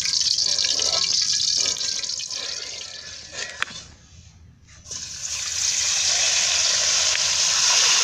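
Hot oil sizzling in an aluminium wok on a gas stove, with a metal spatula stirring and scraping in the first two seconds. About four seconds in it drops almost to quiet for a moment, then a steady, loud sizzle of a marinated whole chicken frying in the oil.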